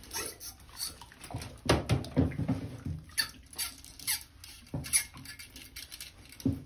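Snake brush's wire cable being drawn through a trombone's inner slide tube to scrub out debris, making irregular squeaks and scrapes, with a couple of louder dull knocks about two seconds in.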